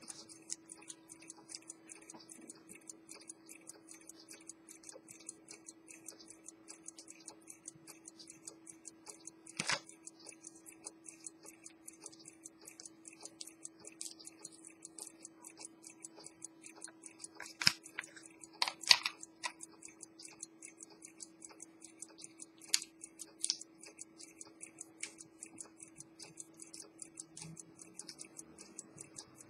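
Swiss ultra-thin pocket watch movement from 1840–1865 ticking fast and evenly, its freshly repaired escapement beating strongly. A few louder clicks stand out, clustered in the middle.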